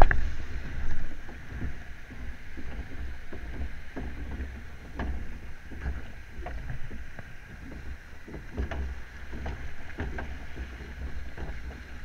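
Log flume boat moving along its water channel: water sloshing and splashing against the hull, with a low wind rumble on the microphone and many small splashes and drips. A sharp hit at the very start, as spray is thrown up at the bow.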